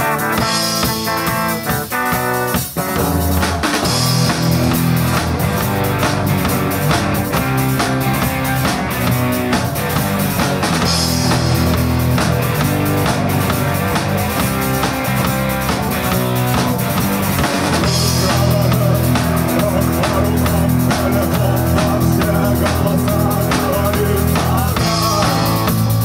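Rock band playing live: strummed acoustic guitar with a drum kit and bass. The sound fills out in the low end about three seconds in.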